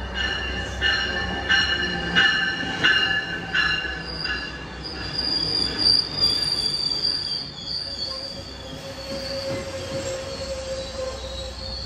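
Sounder commuter train coaches rolling slowly past, with a bell ringing in even strokes about every 0.7 s for the first few seconds. From about four seconds in, the wheels give a high, steady squeal, joined later by a lower squeal tone.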